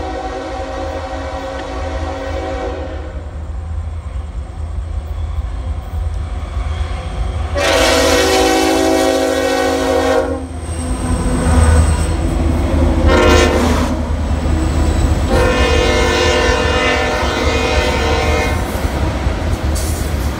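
A diesel locomotive horn blows two long blasts, one short and one long, the standard grade-crossing signal. Under it runs the low rumble and wheel clatter of a double-stack intermodal freight train's well cars rolling past close by, heavier about halfway through.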